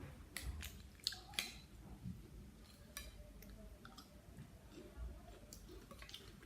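A person chewing blue swimming crab salad close to the microphone, with a cluster of sharp clicks and cracks in the first second and a half and a few more later.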